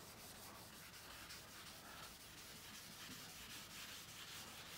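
Foam applicator pad with polishing compound rubbed by hand over car window glass: faint, scratchy rubbing in repeated strokes, an awful-sounding scrape of compound on glass.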